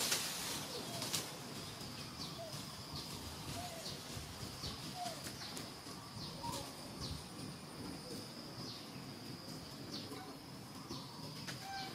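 Outdoor bird and insect chorus: a steady high buzz, short sharp high chirps about once a second, and a few faint soft calls lower down.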